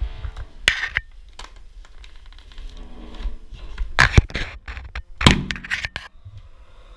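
Sharp knocks and clatter in a few quick clusters, about a second in, around four seconds in and again just after five seconds, from a power tool and metal mounting profile being handled against the wall.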